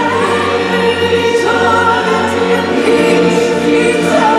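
A choir singing over instrumental holiday music, loud and continuous, with held notes that glide between pitches over a steady bass. It is a show soundtrack played through an outdoor sound system.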